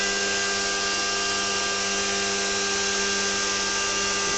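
Remote-controlled hovercraft's electric motors and fans running steadily: a constant whir with several steady whining tones.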